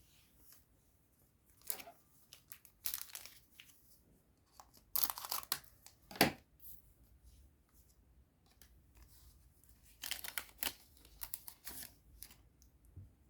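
A Digimon card booster pack's wrapper being torn open and crinkled, in several short rustling bursts. The sharpest, loudest tear comes about six seconds in.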